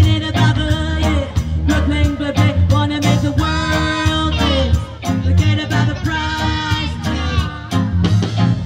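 Live band playing with amplified singing over a heavy bass line and a steady beat.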